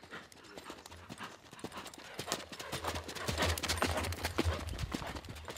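Hoofbeats of a ridden Pura Raza Española (Andalusian) stallion on a sand arena, growing louder as the horse passes close by about three seconds in.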